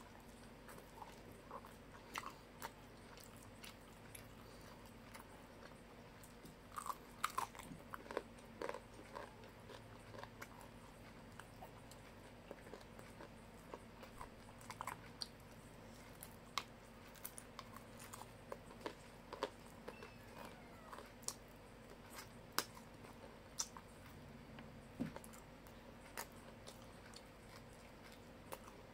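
Close-up chewing and biting of a mouthful of rice with crunchy fried anchovies: irregular faint crunches, clicks and smacks, over a faint steady hum.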